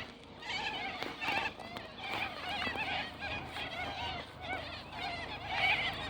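A flock of white cockatoos calling all at once: a dense chatter of many overlapping, wavering calls.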